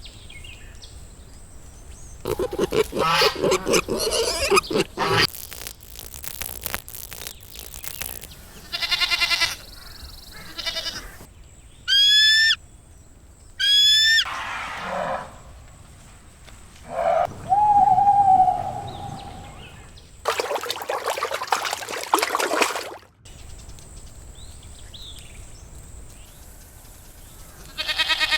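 A series of different animal calls, one after another with short pauses: pitched calls, two short high sweeping cries, a held tone and a noisy burst.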